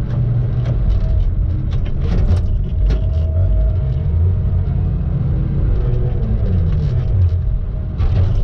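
Tigercat T234 knuckleboom log loader running as its boom swings and the grapple is worked: a steady low engine rumble with a faint whine, and scattered knocks.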